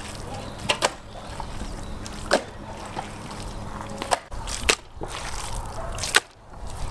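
Raw crocodile meat being mixed by hand with salt and pepper in a bowl: wet squelching and sloshing, broken by several short sharp clicks.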